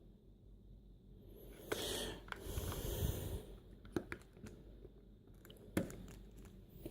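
Batteries being fitted into a cordless phone handset: a rustle, then several sharp little clicks of handling.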